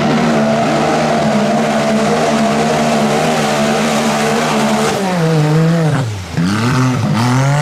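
Lifted side-by-side UTV on big mud tires held at high, steady revs as it churns through deep mud. About five seconds in the revs drop, then swing up and back down and climb again near the end.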